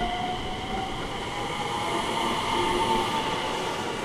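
JR West 227 series electric train pulling away from a station. Its traction motor whine rises slowly in pitch as it accelerates, over the rumble of the wheels on the rails.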